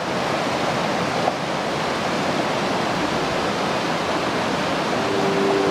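Mountain stream rushing steadily over rocks. About five seconds in, the held notes of harmonium music start to fade in over it.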